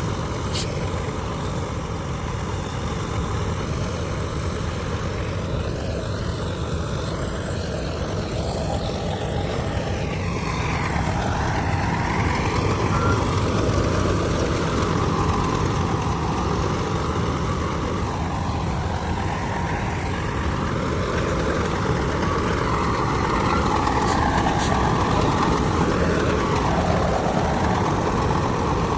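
Combine harvester's diesel engine running steadily. From about a third of the way in, a pitch in the machine's sound wavers up and down and the noise grows a little louder.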